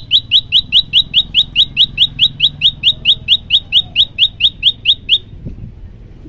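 Common tailorbird singing a fast, even run of loud, short rising notes, about five a second, which stops a little after five seconds in.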